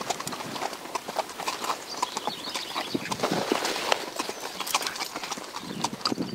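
Horse hooves clip-clopping on stony ground as horses are ridden, an uneven run of hoof knocks.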